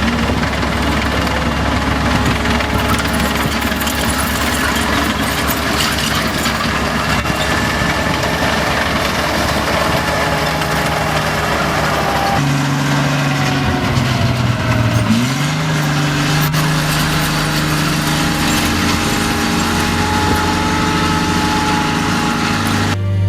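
Tiger 131's Maybach V12 petrol engine running steadily. A little past halfway the sound changes abruptly, and the engine note dips and then climbs again.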